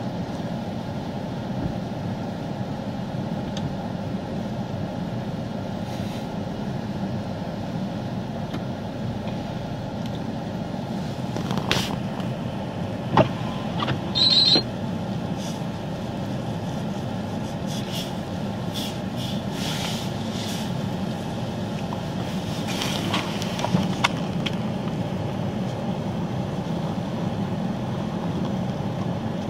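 A vehicle engine running steadily, with a few short knocks and clicks about halfway through and again later.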